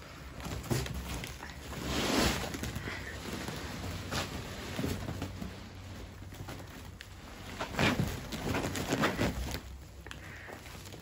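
A woven plastic bulk bag rustling and crinkling as a puppy scrambles over and tugs at it, with irregular scuffs and light knocks. The loudest rustles come about two seconds in and again around eight to nine seconds.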